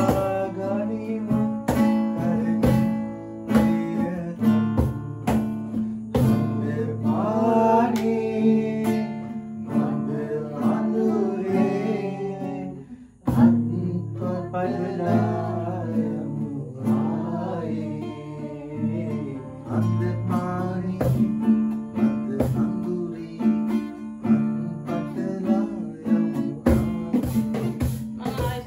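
A man singing a song to a strummed acoustic guitar, with a short break about 13 seconds in before the song resumes.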